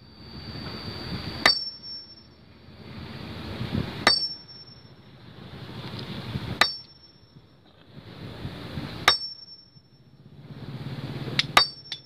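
A steel stone-splitting axe striking a large boulder by hand, about once every two and a half seconds. Each blow is a sharp crack with a short, high metallic ring. Near the end two blows come in quick succession.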